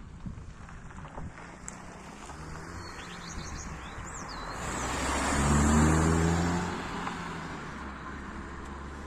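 A car drives past, its engine and tyre noise swelling to a peak about halfway through and then fading. A bird chirps a few times shortly before the car is closest.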